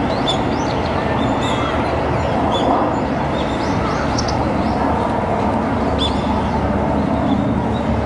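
Short, high, sharp bird chirps, heard a dozen or so times at irregular moments, over a loud, steady rushing noise.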